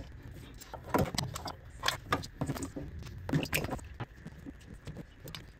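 Scattered clicks, knocks and light rattles of hands fitting a plastic distributor cap and its push-on HT ignition leads, over a faint steady low hum.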